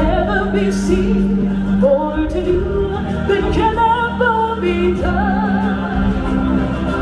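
Solo singer singing a wavering melody through a microphone, over a steady low held note in the accompanying music.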